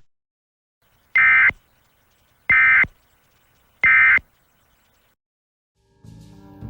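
Emergency Alert System end-of-message data tones: three short, buzzy two-tone digital bursts about a second and a quarter apart, the signal that closes an alert. Faint music begins near the end.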